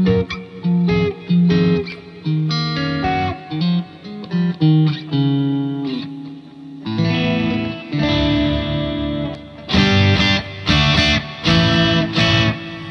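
Electric guitar played through a combo amp fitted with Celestion speakers: picked notes and arpeggiated chords at first, then fuller strummed chords from about halfway, ending in about four short, loud chord stabs.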